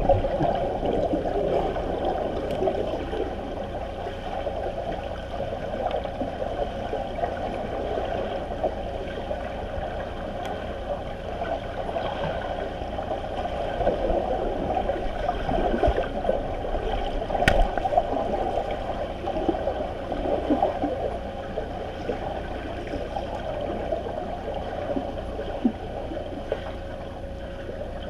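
Swimming-pool water heard underwater: a dense, muffled rushing and bubbling from swimmers kicking overhead, with a faint steady tone under it. A single sharp click sounds about two-thirds of the way through.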